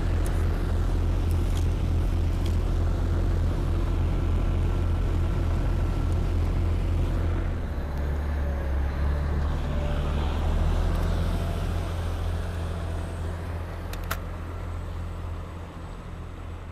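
River passenger boat's engine running under way, a loud steady low hum over churning water noise. The engine note shifts about seven or eight seconds in and eases a little toward the end, with a single sharp click near the end.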